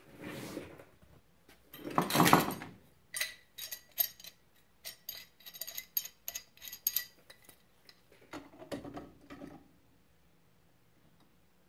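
Metal tools and a clamped rifle being handled on a workbench: a rustle and a louder knock about two seconds in, then a run of quick sharp metal clinks and clicks lasting several seconds, and one more shuffle later on.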